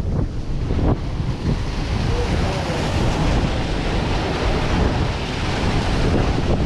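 Wind buffeting the microphone with a heavy low rumble, over a steady rush of ocean surf.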